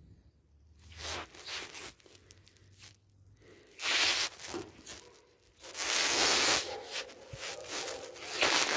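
A cat scrabbling and rubbing on a rug right beside the microphone: short scratchy bursts about one and four seconds in, then a longer, louder stretch of scraping from about six seconds on.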